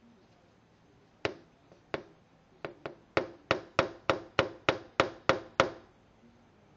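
Sharp tapping on a glass window pane, about a dozen taps. Two spaced taps come first, then a steady run of about three a second that stops suddenly.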